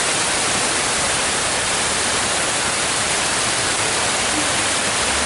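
Water rushing in a loud, steady, unbroken hiss.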